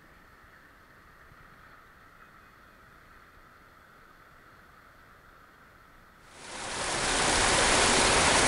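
Faint steady hiss, then about six seconds in the loud, steady rush of a shallow creek running over rocks comes in and holds.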